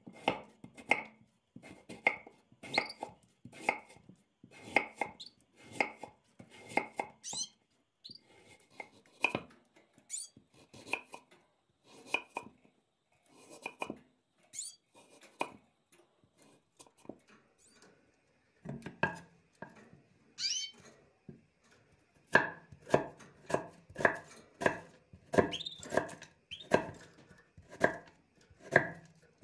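Kitchen knife slicing a peeled potato on a wooden cutting board: the blade knocks on the board in a steady run of strokes. The strokes thin out in the middle, then come quicker, about two a second, near the end.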